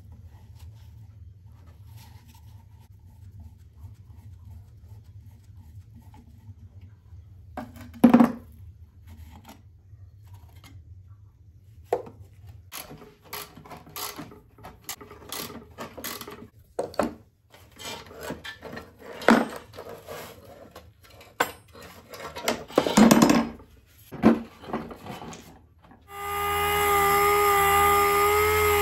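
Hand tools scraping and knocking on old, greasy motorcycle parts, with one sharp knock about eight seconds in and a run of scrapes and clatter from about twelve seconds. Near the end a small electric rotary tool with an abrasive disc starts and runs steadily with a whine, grinding old paint off a frame tube.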